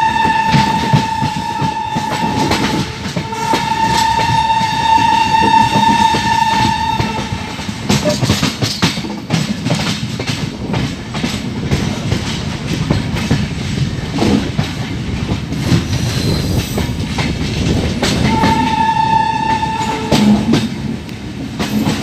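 Passenger train rolling slowly through a junction, wheels clattering over rail joints and points, while a locomotive horn sounds one steady note in three long blasts: briefly at the start, for about four and a half seconds from about two seconds in, and for about two seconds near the end.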